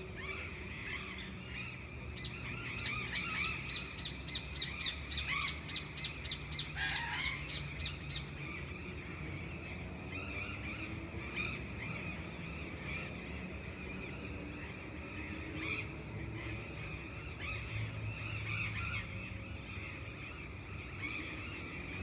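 Many birds chirping in a dawn chorus, with one bird repeating a loud, quick call about three times a second from about two to eight seconds in. A steady low hum of distant motor traffic runs underneath.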